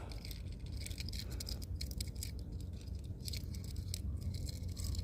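Faint light clicks and scrapes of small plastic lug-nut covers being handled and tried on an Audi A4 wheel, over a low steady background hum.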